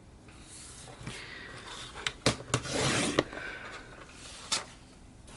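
Sheets of scrapbook paper being handled: rustling and sliding, with a few sharp taps and a longer rustle in the middle.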